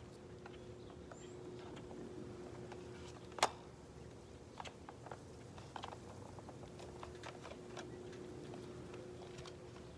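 Small scattered plastic clicks and taps as foam darts are pushed into the holes of a Nerf blaster, with one sharp click about three and a half seconds in. A faint steady hum runs underneath.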